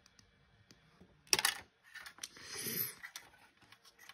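Small sharp clicks of a metal test probe being set against component pins on a circuit board, the loudest a quick cluster about a second and a half in, followed by a short rustle of handling.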